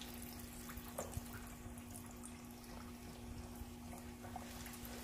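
Chicken wings deep-frying in hot oil in a heavy-bottomed pot: a faint, steady sizzle with small scattered pops, over a steady low hum.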